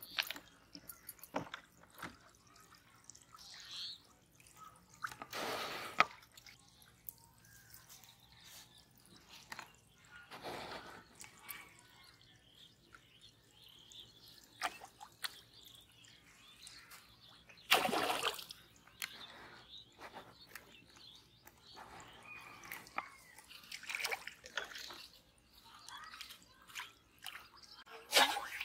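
Small splashes and drips of pond water with scattered light clicks, and three louder splashes.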